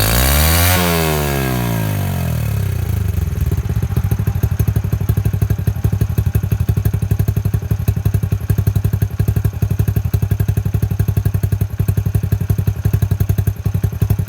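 Motorcycle exhaust through a monaka muffler with its silencer baffle removed. One quick rev rises and falls back over about two seconds, then the engine settles into a loud idle with a sharp, even popping beat. The note is dry and open.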